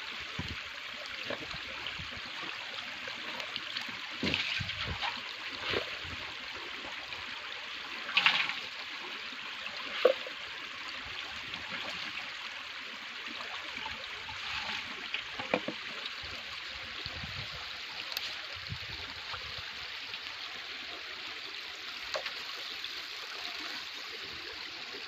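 Steady trickling of running water, with a few brief, louder splashes and knocks.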